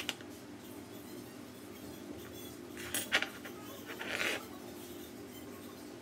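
A metal spoon clinks and scrapes against a ceramic bowl of cream, with a short cluster of clicks about three seconds in as the spoon is set down, then a brief soft scraping rustle as a finger scoops cream from the bowl. A faint steady hum runs underneath.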